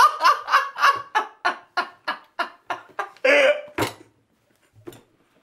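A man laughing helplessly: a quick run of short ha-ha pulses that slow down and fade over about three seconds, then one louder burst.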